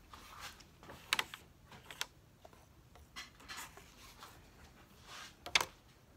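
Light handling noises as a flat tool and hands work over a paint-covered vinyl record and the paper under it: a few short scrapes and clicks, the sharpest about a second in and near the end.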